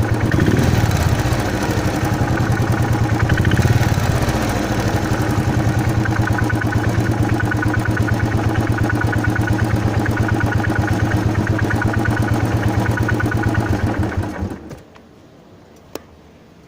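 Royal Enfield Thunderbird 350 Twinspark's single-cylinder engine idling with an even firing pulse, blipped briefly about half a second in and again near four seconds. It carries a noise that worries the owner but that the service centre calls normal. The engine cuts off about fifteen seconds in, followed by one sharp click a second later.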